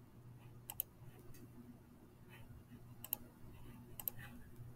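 Computer mouse clicked three times, each click a quick double tick as the button is pressed and released, faint over a steady low hum.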